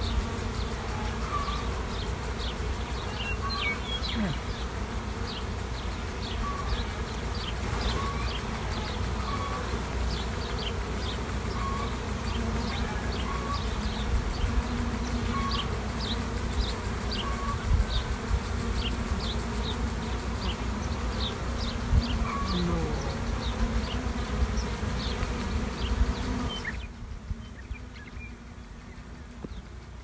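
A mass of honeybees buzzing steadily around an open hive, with short high chirps repeating about once or twice a second over the hum. The whole sound gets noticeably quieter about 27 seconds in.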